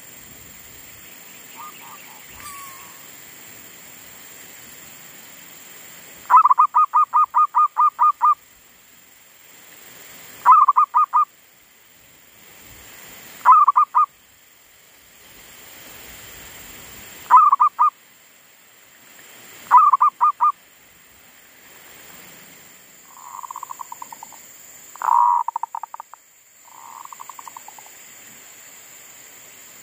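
Zebra dove (perkutut) cooing: five loud phrases of quick staccato notes, the first a long run of about ten, then three softer, rolling coos near the end. A caged lure bird singing again after falling silent from stress.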